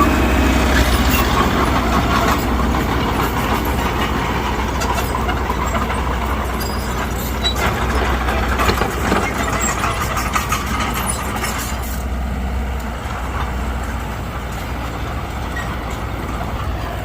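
Mitsubishi BD2G bulldozer's diesel engine running steadily, with a few short clanks around the middle and the engine a little quieter over the last few seconds.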